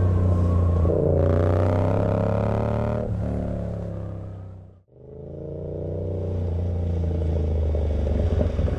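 Yamaha MT-07 parallel-twin motorcycle engine running steadily under way. The sound fades out to silence about five seconds in, then fades back up.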